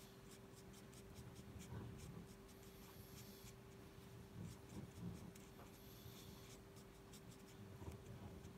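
Faint scratching and light tapping of a felt-tip marker nib on paper as small areas are coloured in, a soft irregular run of tiny scrapes and ticks over a faint steady hum.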